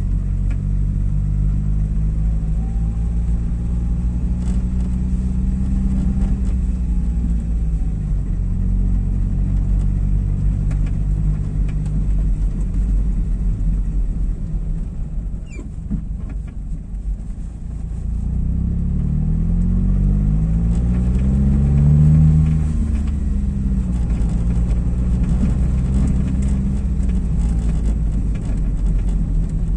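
Car engine and tyre rumble heard from inside the cabin while driving over brick paving, the engine's pitch rising and falling as the car speeds up and slows. The sound dips quieter about halfway through, then builds to its loudest shortly after.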